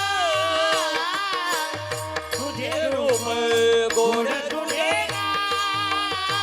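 A male kirtan singer singing a Marathi devotional song, his voice sliding and ornamenting the melody over held accompanying tones and a steady low drum beat.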